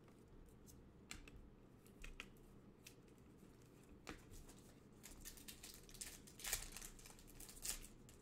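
Faint handling of trading cards and their pack wrappers: a few soft clicks and snaps, then a stretch of crinkling and rustling from about five seconds in, as a wrapper is torn and cards are shuffled.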